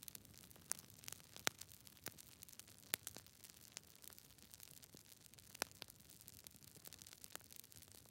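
Fire crackling: irregular sharp pops and snaps over a faint hiss, the loudest about a second and a half and three seconds in.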